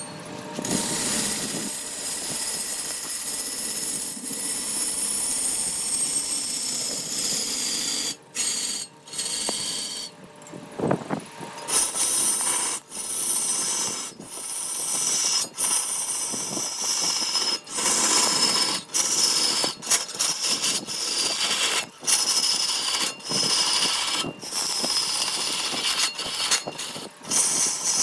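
Electric power tool running on wood, a steady hiss with a high whine that drifts slowly in pitch, broken by many short sudden dropouts from about eight seconds on.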